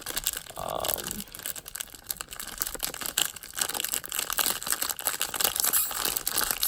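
A plastic LEGO minifigure blind bag being crinkled and torn open by hand, with continuous irregular crackling and rustling.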